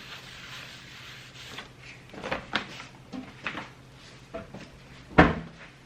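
Kitchen clean-up handling: soft rubbing and rustling, then a few light knocks and clatters, and one sharper, louder knock about five seconds in.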